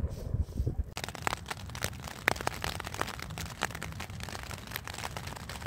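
Raindrops pattering irregularly on tent fabric, starting about a second in after a few low thumps.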